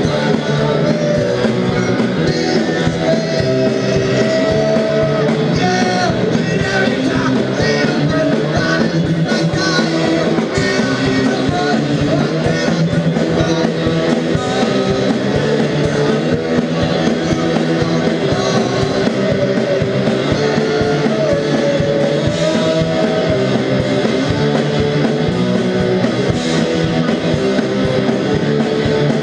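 Live rock band playing a song: electric guitars and drums, loud and continuous.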